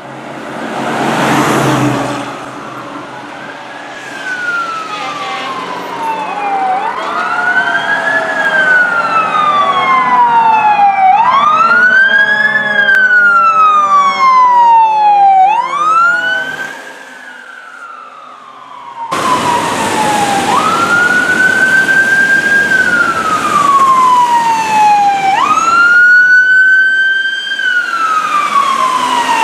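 Fire apparatus responding with sirens wailing, each sweep rising quickly and falling slowly every few seconds, with a horn blast about a second in and two or three sirens overlapping in the middle. After a sudden cut near the two-thirds point, a single siren wails in the same pattern.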